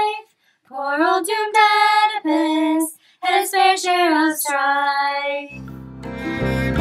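A woman singing a ballad refrain unaccompanied, in short phrases with brief pauses between them. About five and a half seconds in, instrumental music comes in.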